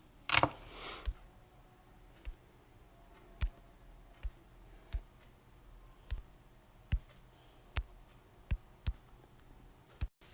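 Quiet room tone: a faint steady hiss with about a dozen sharp, isolated clicks at irregular intervals and a short rush of noise just after the start. The sound cuts out completely for a moment near the end.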